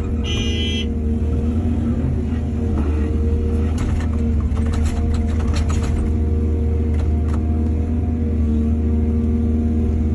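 Excavator's diesel engine running steadily, with clanks and knocks from the machine working through the middle. A brief high-pitched tone sounds about half a second in.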